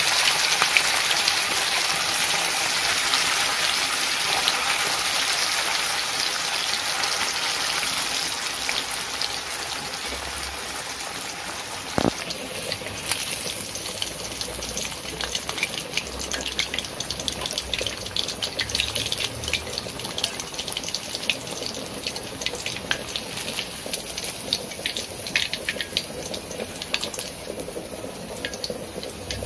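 Masala-coated fish pieces frying in hot oil in a steel kadai. A dense, steady sizzle fades about halfway through into sparser crackles and pops as the fish browns and less moisture is left to boil off.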